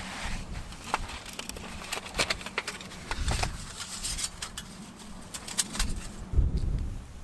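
Small metal clicks and clinks of a folding steel camp stove being taken from its fabric pouch and slotted together, with rustling of the pouch and grass.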